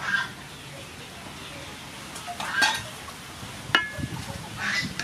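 Spatula stirring and scraping stir-fried pig ears and vegetables in a wok over a steady sizzle. There are four scrapes, and the third, about three and a half seconds in, is a sharp ringing clink of the spatula against the wok.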